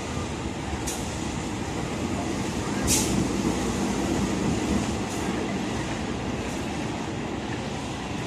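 CC 201 diesel-electric locomotive rolling slowly past while shunting, its engine running with a steady low rumble that peaks about three to five seconds in. A few sharp clanks come over it, the loudest about three seconds in.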